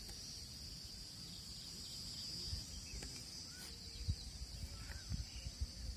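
Steady high chirring of insects, like a cricket chorus, with a few short bird chirps and irregular low rumbles of wind on the microphone.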